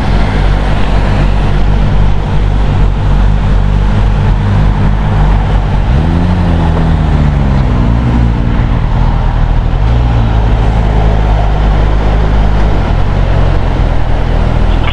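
Suzuki GSX-S1000GT motorcycle's inline-four engine running while under way, under a steady rush of wind and road noise. About six seconds in, the engine note swells up and falls back.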